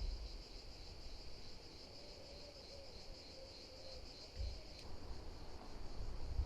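Steady, high-pitched chirring of insects, such as crickets or cicadas, with a low rumble underneath that swells about four seconds in and again near the end.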